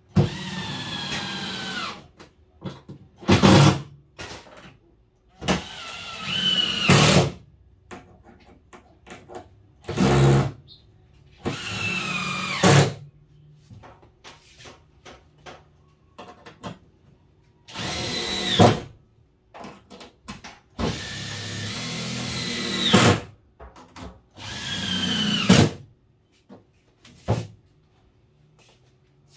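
Cordless drill driving screws into a wooden countertop in about eight short runs, each a second or two long. The motor's whine falls in pitch during each run as the screw goes in, then stops sharply.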